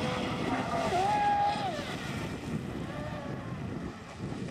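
An electric RC speedboat with a 1550kv brushless motor running at speed over the water. The motor's whine rises and falls in pitch, loudest about a second in, over the hiss of spray from the hull.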